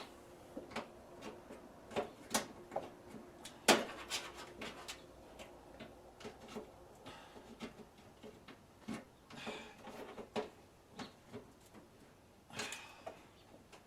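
Irregular sharp clicks and knocks of pliers and hand tools working at a stuck plastic retaining clip, crushing and breaking its flared top to pull it out. The loudest knocks come about two and a half and about three and a half seconds in, with a couple of brief rustles later.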